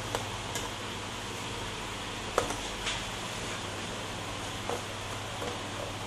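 A few faint plastic clicks and taps as hands work at the Lenovo ThinkPad E430's bottom access panel, the sharpest about two and a half seconds in, over a steady room hum.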